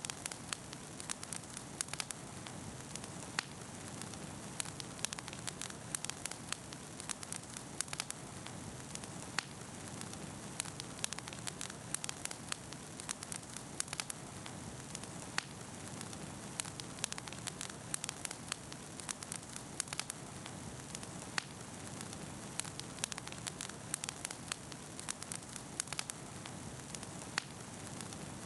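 Wood campfire burning, with steady hiss and frequent sharp, irregular crackles and pops.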